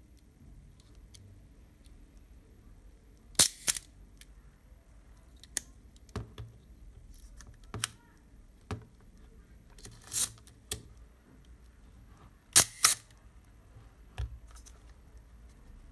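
Contarex SLR's cloth focal-plane shutter being cocked and fired by hand with the camera opened up. Sharp mechanical clicks, the loudest two double clicks a third of a second apart, about three seconds in and again near the end, with lighter clicks and snaps of the mechanism between.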